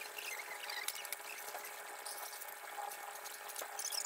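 Water running and trickling steadily, as from a garden hose or the pond's water, with scattered small high ticks and chirps over it.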